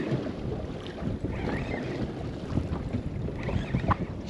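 Wind buffeting the microphone and water moving against a small boat's hull, with a brief knock near the end.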